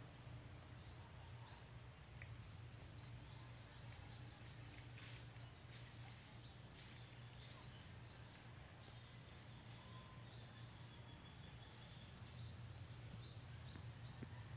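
Faint birds chirping: short high chirps every second or so, coming quicker near the end, over a low steady hum.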